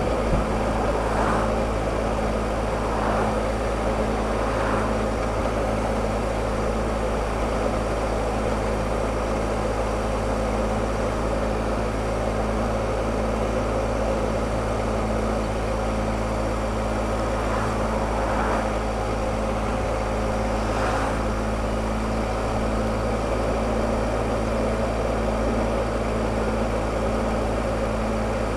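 Triumph Explorer motorcycle's three-cylinder engine running at a steady, unchanging speed while cruising, under a constant rush of wind and road noise.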